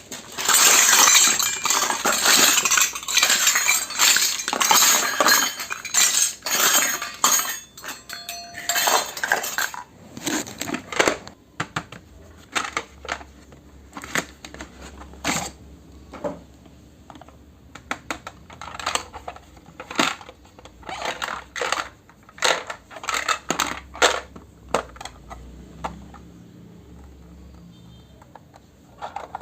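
Miniature toy cookware clinking and tapping as it is handled and set down: a dense flurry of clinks and rustling for about the first ten seconds, then scattered single clicks and taps.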